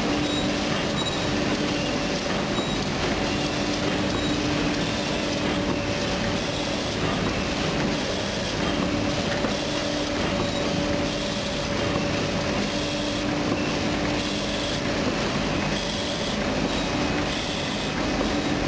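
Paper cone making machine running: a steady mechanical clatter, with a low hum that breaks off and returns about every second as the machine cycles.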